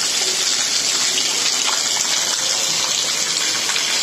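Heavy rain falling steadily, with water gushing off the roof and splashing onto the doorstep.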